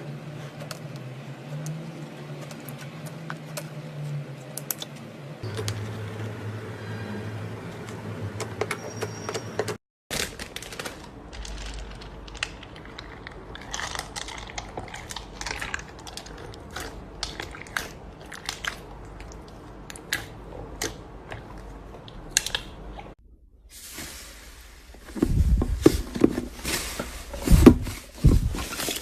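Slime being squeezed and kneaded by hand, with many small crackling clicks and squishes. The texture changes abruptly several times. A low hum runs under the first part, and louder, thicker pops come near the end.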